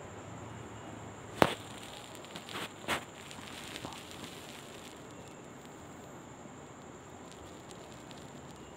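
Knocks and rustling of a person shifting into a cross-legged seat on a woven plastic floor mat: a sharp knock about a second and a half in, a rustle and a second knock about a second and a half later, then a few faint ticks. After that only a steady hiss.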